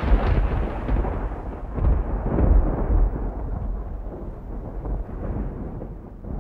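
A deep, rolling rumble like thunder that swells a few times and slowly dies away, its hiss fading until mostly a low rumble is left near the end.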